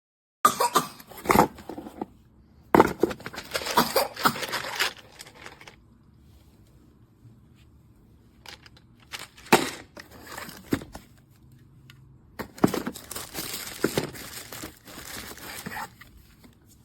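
Plastic packaging crinkling and rustling as it is handled, in bursts of one to three seconds with quieter gaps between.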